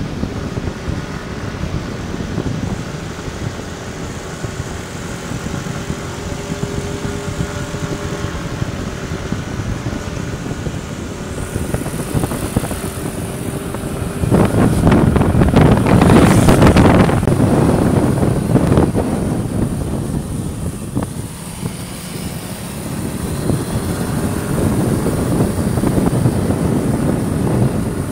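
Motorbike engine running steadily on the move, mixed with wind buffeting the microphone; the wind noise swells louder about halfway through and again near the end.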